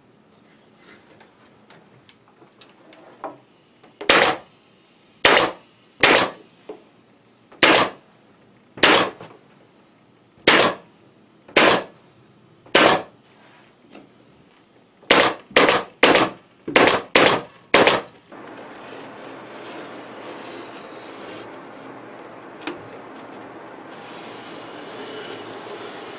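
Pneumatic staple gun firing staples through Dacron batting into wooden lattice strips, about fourteen sharp shots: at first about one a second, then a quicker run of six. After that a steady noise sets in.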